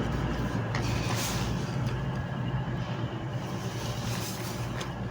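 Trains in the station: a steady low hum over a rumbling noise, slowly fading, as a Class 390 Pendolino electric train pulls away and a Class 221 Voyager diesel unit arrives.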